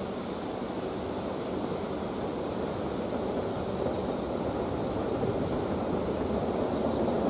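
Low rumble of an approaching train, a steady rushing noise that slowly grows louder, mixed with wind.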